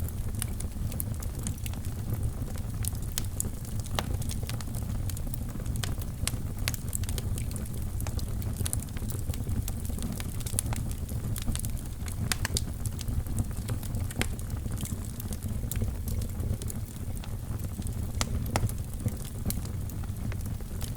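Wood fire burning in a fireplace: a steady low rumble of flames with frequent irregular crackles and sharper pops.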